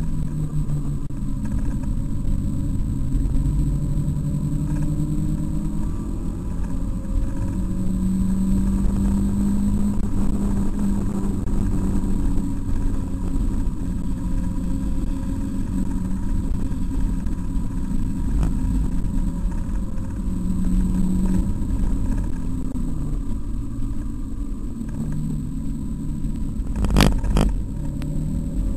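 Mazda MX-5's four-cylinder engine heard from inside the cabin while lapping a racetrack, its pitch rising under acceleration and stepping up and down with gear changes and lifts. Two sharp knocks near the end.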